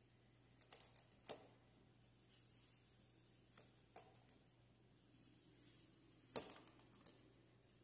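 Plastic knife cutting through kinetic sand: quiet crunching crackles in small clusters, about a second in, near four seconds, and loudest a little after six seconds.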